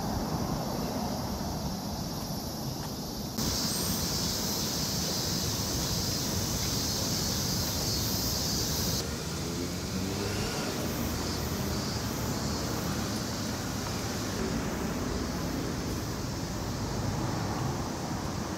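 Steady outdoor street noise of passing traffic, with abrupt changes in the background about three and a half seconds in and again about nine seconds in.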